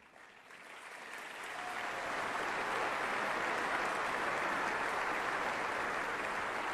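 Large audience applauding, the clapping building up over the first couple of seconds and then holding steady.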